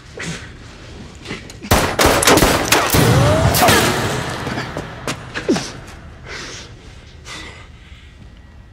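Film fight sound effects: a rapid burst of loud, gunfire-like bangs and impacts about two seconds in, lasting around two seconds, with a brief ringing tone. A few scattered hits and scuffles follow.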